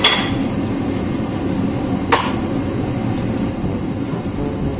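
One sharp metallic clink against the wok about two seconds in, over a steady hiss.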